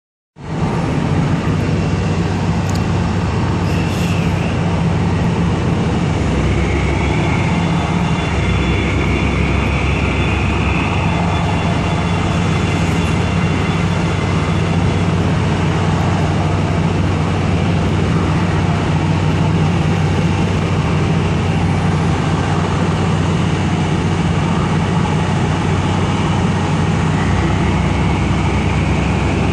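Steady drone of heavy machinery on an offshore platform, with a constant low hum. A faint whine rises in pitch about eight seconds in and again near the end.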